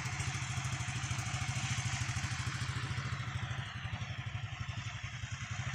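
An engine running steadily at low speed, with a fast, even pulse.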